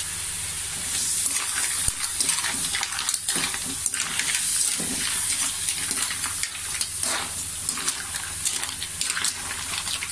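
Green mussels sizzling in a hot pan while a spatula stirs them, the shells clattering and scraping against the pan. The stirring starts about a second in, and the sizzle gets louder from there.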